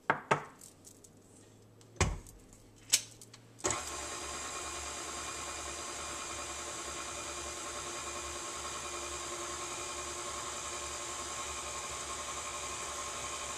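A few sharp knocks, then about three and a half seconds in a KitchenAid stand mixer's motor switches on and runs steadily, its beater working flour into peanut butter cookie dough.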